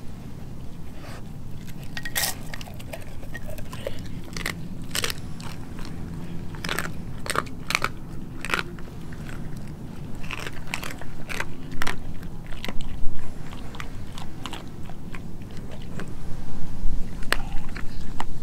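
Doberman chewing and crunching pork skin: many quick, irregular crunches and wet crackles of biting, heaviest a little after the middle and again near the end.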